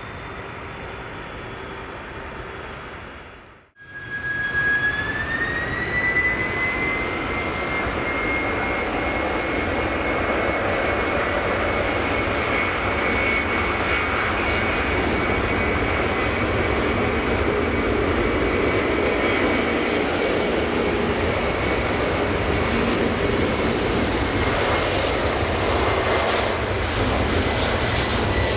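Boeing 747-400F's four turbofan engines at takeoff power. After a brief cut a few seconds in, a whine rises in pitch and then holds steady over a deep rumble that grows louder as the freighter rolls down the runway.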